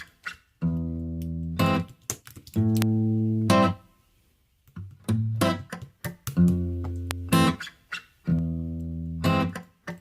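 Background music: the instrumental intro of a song, guitar chords held for about a second each with short plucked notes between them and a brief pause about four seconds in.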